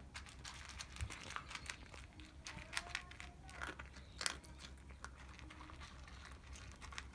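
Toy poodle puppy crunching and chewing its food, a run of irregular small crunches.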